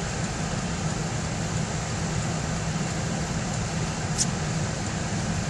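Steady car-cabin noise heard from inside a passenger car, with a low engine and road hum under a hiss of air. There is one short click about four seconds in.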